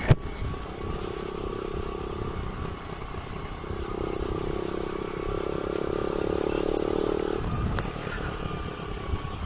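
Motorcycle engine running at a steady cruising speed over low wind rumble, its note dropping away and returning partway through. A sharp click comes right at the start.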